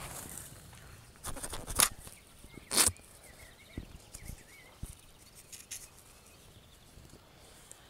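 Outdoor handling noises: short rustles, loudest about one and a half and three seconds in, with a few light clicks, over faint bird chirps.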